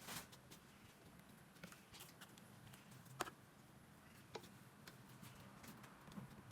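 Near silence with a few faint, scattered clicks and taps of small hard objects being handled.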